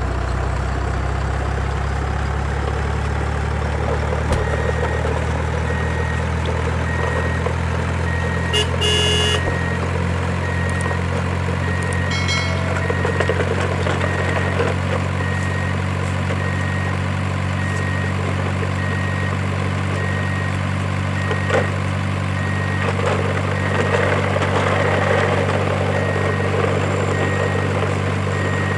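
Truck engine idling with a deep, steady rumble. A horn toots once about nine seconds in, and a faint beeping repeats evenly for much of the time.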